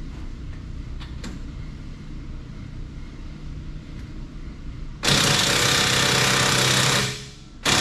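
Impact wrench hammering in a loud burst of about two seconds, starting about five seconds in, then a second short burst near the end, as it breaks loose the bolts holding a planter's closing wheels.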